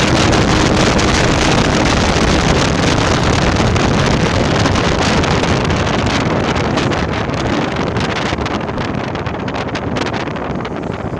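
Yamaha RX-King's single-cylinder two-stroke engine running loudly through an exhaust set up for the raspy 'ngorok' tone. Its sound eases down and loses its hiss over the last few seconds.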